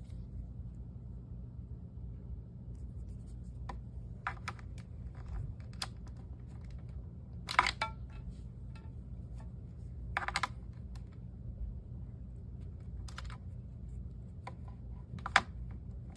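Scattered light clicks and clatters of small hard objects being handled, over a steady low hum. The loudest clicks come about 7.5 s, 10 s and 15 s in.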